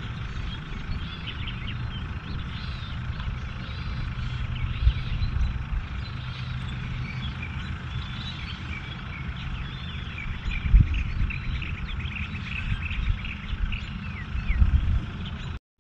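Songbirds chirping and twittering, many short calls with a quick trill near the middle, over a steady low rumble with a few dull bumps.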